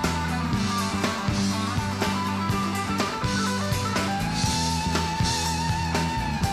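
Soundtrack music: guitar over sustained bass notes and a steady drum beat, with a long held higher note from about four seconds in.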